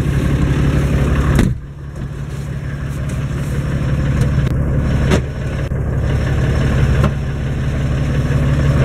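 Massey Ferguson 1102 (Eicher 3105) tractor's air-cooled diesel engine running, heard from inside the cab. Its sound drops suddenly after a knock about a second and a half in, then builds steadily over several seconds, with further short knocks about five and seven seconds in.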